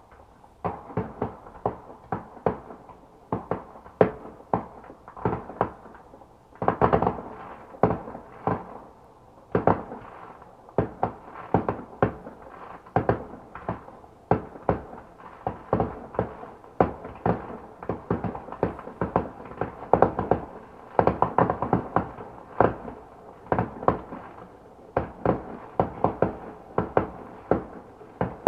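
Fireworks going off: a dense, irregular string of sharp bangs and pops, often several a second, each with a short echo. Some bursts come in quick clusters.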